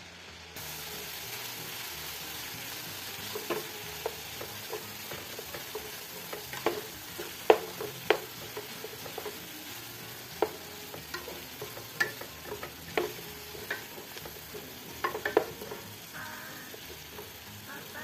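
Chopped vegetables frying in a non-stick pan, a steady sizzle setting in about half a second in, as freshly added chopped tomatoes are stirred in with a spatula that clicks and scrapes irregularly against the pan.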